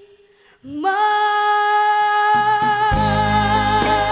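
A young female singer belts one long held note with a backing band, scooping up into it after a brief hush. The bass and drums come in underneath it about three seconds in.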